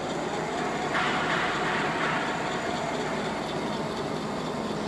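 Engine lathe running, spinning a long steel motor-rotor shaft in its chuck: a steady mechanical hum and hiss that gets a little brighter about a second in.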